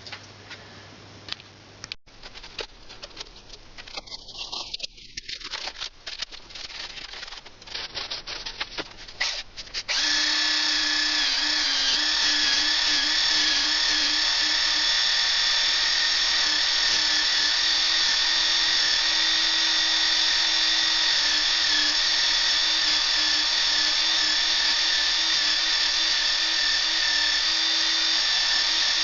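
Scattered light clicks and handling noise, then about ten seconds in a small power tool's electric motor starts abruptly and runs at a steady speed, its whine wavering slightly in pitch.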